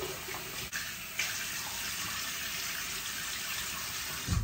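Bathroom tap running steadily into the sink while someone splashes water on their face to rinse off makeup remover, with a short low thump near the end.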